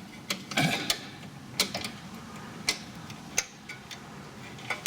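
Scattered sharp metallic clicks and clinks, about half a dozen at irregular intervals, as the broken deck-height chain link and its fittings are worked free and lifted out of the mower's deck-height linkage.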